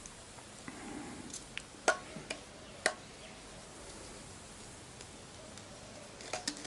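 A few light, sharp clicks and taps of engine parts and tools being handled, with a soft rustle about a second in; the loudest taps come about two and three seconds in, and a quick pair near the end.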